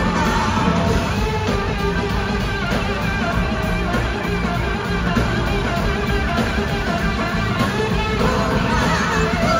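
Live blues-rock band playing at full volume: an electric guitar lead over a full band with drums.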